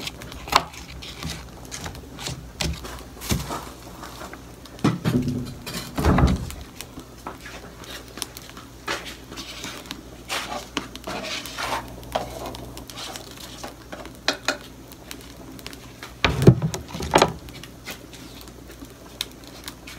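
Cooking pot and utensils knocking and clinking while being handled, light scattered clatter with a few louder knocks about five to six seconds in and again near sixteen to seventeen seconds.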